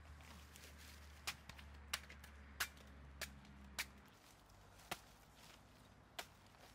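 Machete blade chopping through a banana stem: seven short, sharp chops, roughly one every half second to second, with a longer gap near the end.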